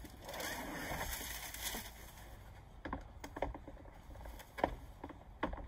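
Plastic planter tiers being handled in a cardboard box: a rustle for about two seconds, then several light plastic clicks and knocks as the tiers are stacked together.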